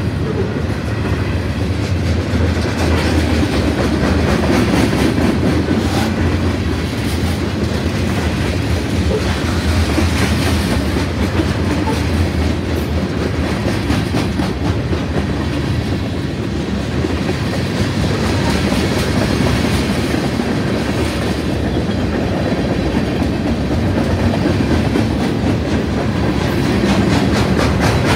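Manifest freight train's covered hopper and tank cars rolling past close by: a steady rumble of steel wheels on rail with rapid, continuous clicking as the wheels pass over the rail joints.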